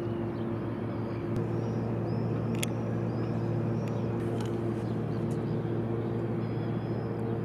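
Steady low machinery hum with a fixed pitch that does not rise or fall. Over it come faint high chirps repeated every half second or so, and a few sharp clicks, the clearest about two and a half seconds in.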